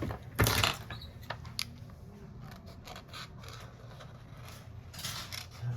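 Scattered light clicks and scrapes of small hard objects being handled, with a louder brief clatter about half a second in and another cluster near the end, over a steady low hum.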